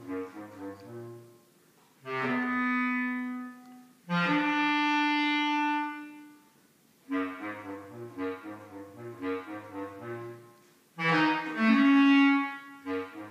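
Bass clarinet playing a slow-fast passage: quick, quieter runs of low notes alternate with long, loud held notes, two near the start and another, with a short upward slide into it, near the end.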